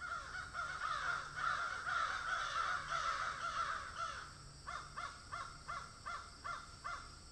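Crows cawing, many calls overlapping at first, then a run of about seven single caws at a little over two a second before they stop near the end.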